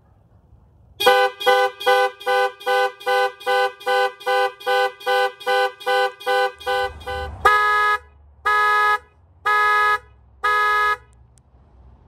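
Range Rover Velar's alarm going off through its horn. It honks in rapid short pulses, about three a second, for about six seconds, then switches to four longer honks about a second apart.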